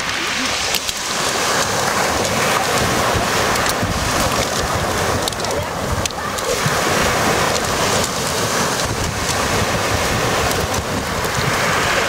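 Small sea waves breaking on a pebble beach, the surf and backwash hissing and rattling through the stones, with wind rumbling on the microphone.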